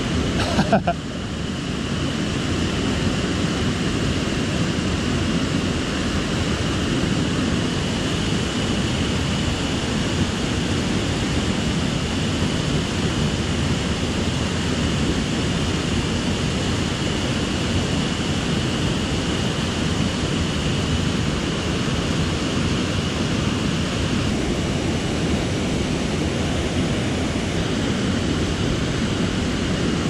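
Mountain stream water rushing steadily, an even noisy wash. A few brief knocks about a second in.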